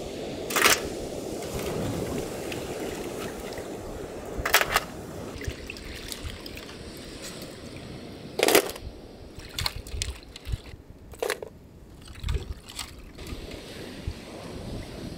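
Water sloshing and trickling as food is washed by hand, broken by several sharp splashing hits.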